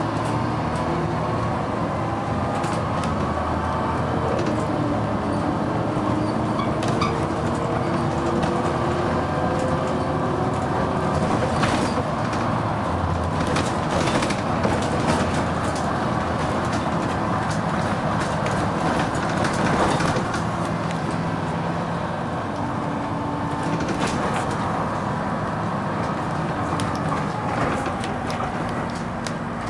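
Dennis Arrow double-decker bus driving, heard from inside: the engine is being worked hard, its pitch rising and falling through the ZF automatic gearbox's gear changes, with scattered body rattles.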